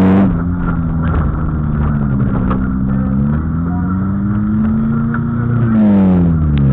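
Old street banger's engine heard from inside the car, revving up and easing off under racing, with the revs dropping steeply near the end. A sharp knock comes right at the start.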